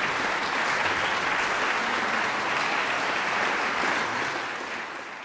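Concert audience applauding steadily, fading out over the last second or so.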